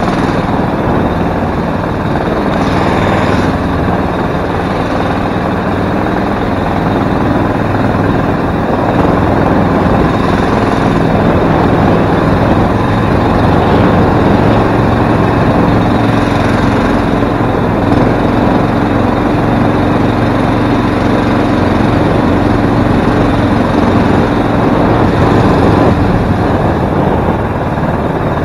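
Small gasoline mud motor running steadily, pushing an aluminum jon boat along at an even speed.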